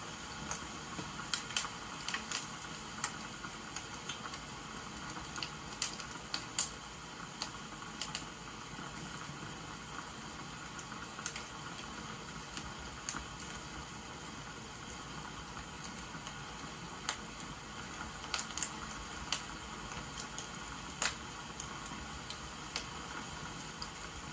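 Wood fire crackling, with irregular sharp pops over a steady rain-like hiss.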